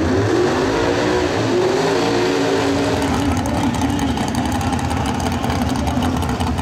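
Drag race car engine: its pitch rises and falls over the first few seconds as the revs change, then it settles into a steady idle through open exhaust headers.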